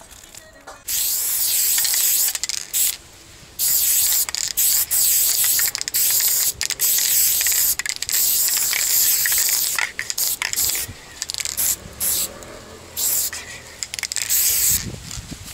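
Aerosol spray paint can hissing in repeated bursts of one to a few seconds, with short pauses between strokes, as black letters are sprayed onto a wall. The spraying starts about a second in.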